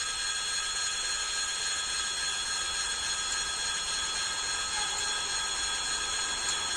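Steady, high bell ringing, several held tones sounding together without a break, beside a railway line.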